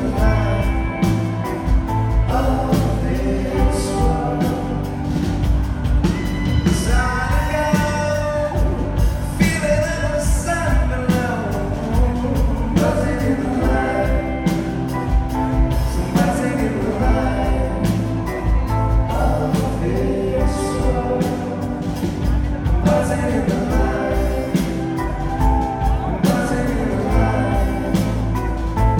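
Live rock band playing a song with sung vocals over drums, bass and guitars, with a steady beat.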